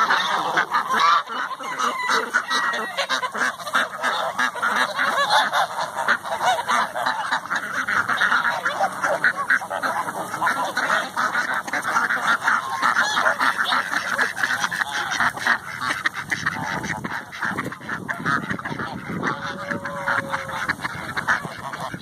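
A mixed flock of domestic geese, ducks and chickens calling all at once as they feed: continuous goose honking and duck quacking over chicken clucks, with no let-up.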